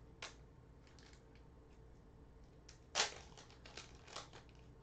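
Heat-sealed foil wrapper of a Panini basketball card pack being torn open by hand: faint crinkles, then a sharp crackling tear about three seconds in, followed by crinkling of the foil.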